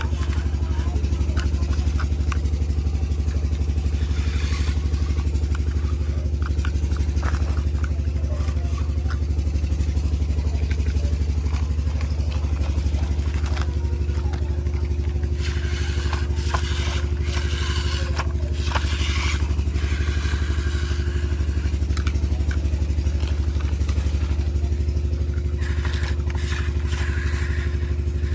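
Tractor diesel engine running steadily at an even speed, with occasional clatter and short patches of hiss over it.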